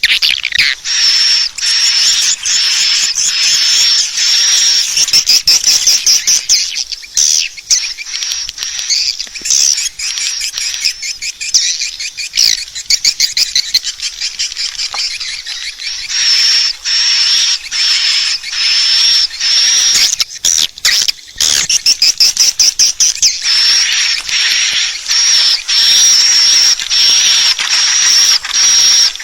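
Swiftlet calls played as a lure recording: a dense, loud stream of rapid, high twittering chirps, broken by a few short gaps about two-thirds of the way through.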